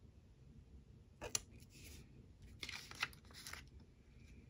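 Faint crinkling and scraping of paper planner stickers being handled: a sticker peeled from its backing sheet and pressed onto the page, in a few short bursts about a second in and again around three seconds.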